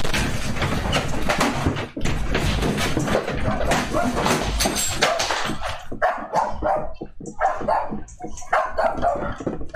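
A room shaking in an earthquake, with a loud dense rattle and rumble. About six seconds in, a dog starts barking in short repeated yelps.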